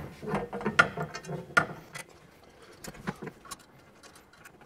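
Metal clicks and clinks of a roof-rack bracket and its bolts being fitted by hand to the roof rail inside a Jeep. The clicks are irregular, thick in the first two seconds, then sparse, with a short cluster about three seconds in.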